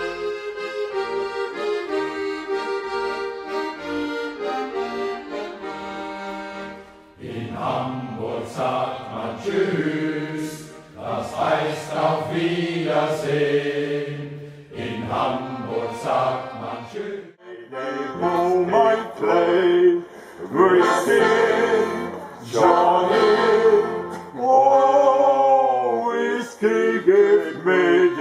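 Accordion playing a sea-shanty melody on its own, then about seven seconds in a shanty choir comes in singing over the accordion.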